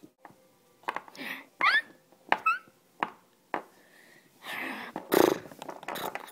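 A person voicing animal noises for toy figurines: short rising squeals and a rough, growl-like breathy burst, which is the loudest sound. Sharp clicks of plastic figures knocking on the table come between them.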